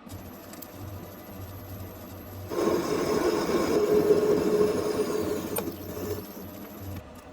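Machine tool's electric motor running with a steady hum and a high whine. For about three seconds in the middle it turns into a much louder, rougher sound as the tool works under load. It shuts off near the end.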